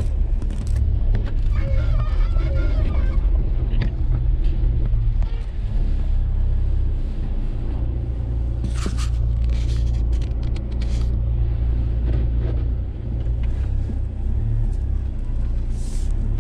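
Jeep Wrangler TJ engine running at low speed with a steady low rumble, heard from inside the cab. A few sharp rattles come around nine to eleven seconds in.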